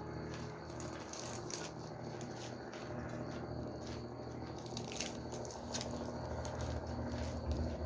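Close-up chewing of crisp raw vegetables, with irregular crunches.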